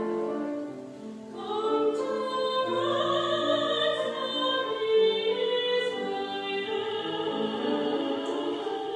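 Operatic singing in classical music, long held notes moving from pitch to pitch.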